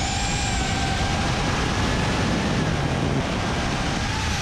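Whir of a 5-inch FPV racing quad's BrotherHobby 2306 motors and three-blade props, heard from the onboard camera, holding a steady pitch that drifts slightly with throttle, over a rushing wind rumble on the microphone.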